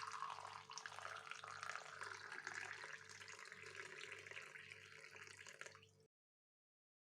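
Water pouring steadily, most likely hot water poured into a cup for chamomile tea, cut off suddenly about six seconds in.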